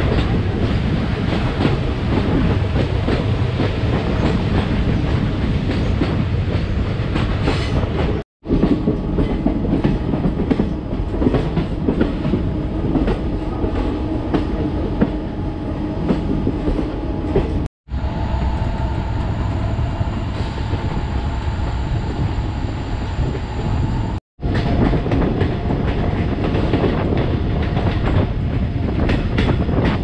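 Indian Railways passenger train running along the track: a steady, loud rumble of the coaches with wheels clacking over rail joints. It is broken by three sudden short dropouts, about 8, 18 and 24 seconds in.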